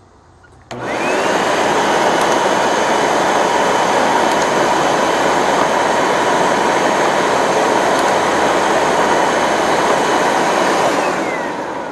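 Hoover WindTunnel 2 upright vacuum switched on about a second in, its motor whining up to speed and then running steadily, before being switched off and winding down near the end. The brush roll isn't turning, which the owner takes for a probably broken or popped-off belt.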